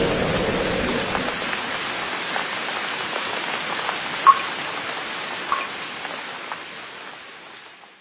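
Steady rain with a few louder drips about halfway through, fading out toward the end.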